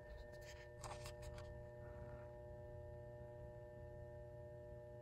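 Faint, steady hum from the ballast of a 100-watt mercury vapor lamp that is still warming up: a low buzz with several overtones. A few faint clicks come about a second in.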